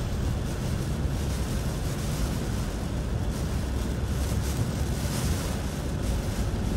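Steady low rumble and rushing noise inside a car moving on a rain-soaked road in hurricane wind: tyre spray and wind against the vehicle, with no distinct single event.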